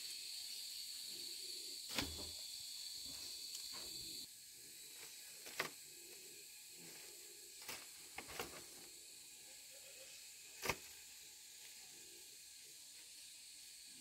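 Insects trilling steadily in a high-pitched hiss; the strongest trill stops suddenly about four seconds in. About six short, sharp knocks fall through the rest of it.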